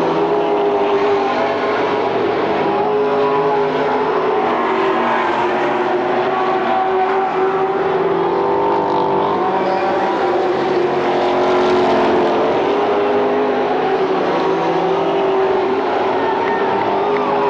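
Pack of late model stock cars racing around the oval, their V8 engines running at high revs. It is a steady din of several overlapping engine notes that shift in pitch as cars come and go, heard from the grandstand.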